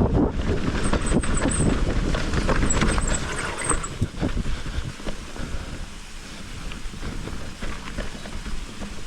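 Mountain bike riding down a rough, wet trail: tyre rumble, rattling knocks and wind on the microphone, with faint high squeaks twice early on. It eases to a quieter steady hiss after about four seconds.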